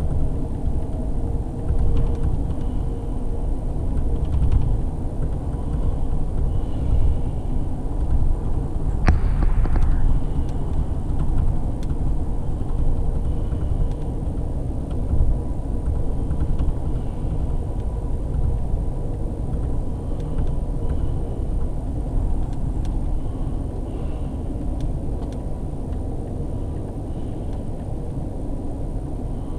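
Steady low rumble of a moving Amtrak Texas Eagle passenger train, heard from on board, with a sharp knock about nine seconds in.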